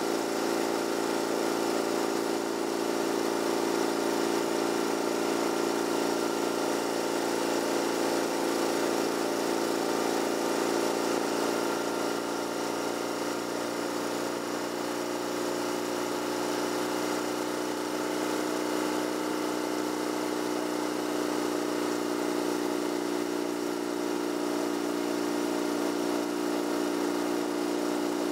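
Vehicle engine and road noise while cruising, a steady drone whose pitch drifts slightly.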